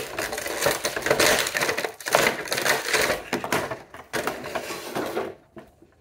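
Clear plastic toy packaging crackling and rattling as it is handled, a dense run of small clicks and crunches that stops about five and a half seconds in.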